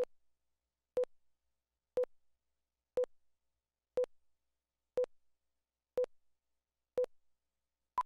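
Countdown leader beeps: short, identical electronic tone pips, one a second, keeping time with the slate's countdown, ending in a single higher-pitched beep at the end (the two-pop).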